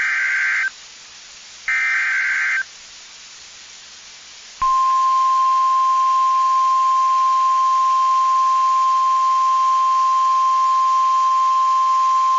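Emergency Alert System SAME header: two short digital data bursts about a second apart, the end of the coded alert header. After a pause of about two seconds comes a long, loud, steady single-pitch attention tone, the signal that a warning message follows.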